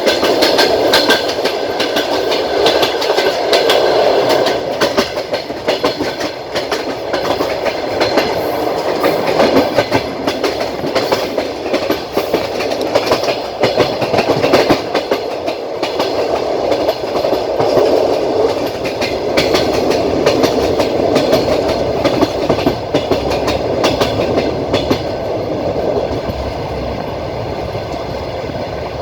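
Passenger train rolling along the track: the wheels clatter over rail joints with a steady rumble. Near the end the clicking thins out and the rumble turns smoother and slightly quieter.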